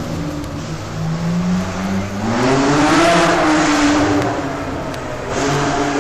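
1960s Formula One racing cars accelerating out of a slow hairpin. Engines run at low revs at first. About two seconds in, one car's note rises loudly as it pulls away, and another car begins accelerating near the end.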